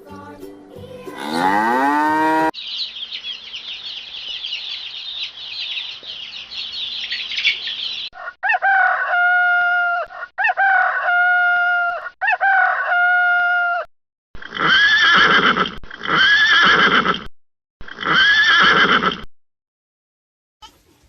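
A string of farm-animal calls: high continuous chirping for several seconds, then three repeated calls, then three more rising-and-falling calls with short gaps between them, the kind of calls typical of poultry.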